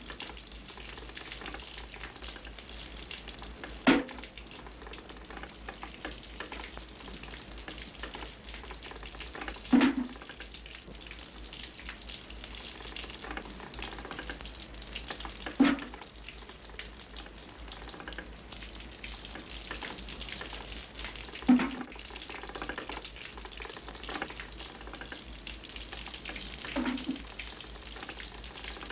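A steady, low crackling hiss with a short dull thud about every six seconds, five in all.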